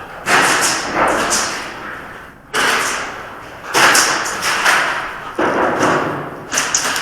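Airsoft gunfire in the shooter's hands and from other players: about five bursts of rapid shots, each starting sharply and echoing away in a large indoor arena.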